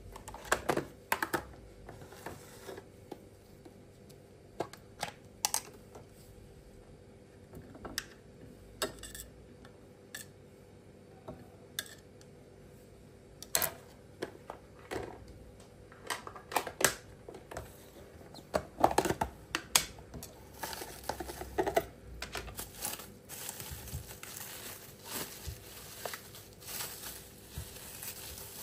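Household handling sounds: irregular light clicks, knocks and rustling as small objects are picked up and set down, busier in the second half.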